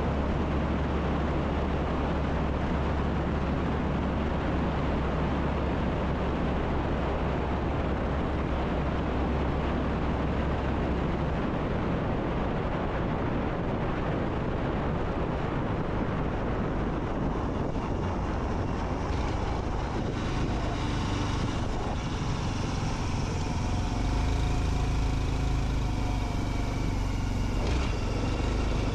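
A Honda CT125 Hunter Cub being ridden: steady wind rush on the microphone over its single-cylinder engine running. The engine's tones come through more clearly in the second half.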